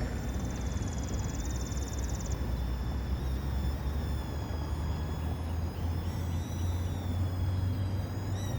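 Small toy quadcopter drone's motors and propellers whining in flight, a thin high whine that wavers a little in pitch as it manoeuvres, over a louder steady low rumble.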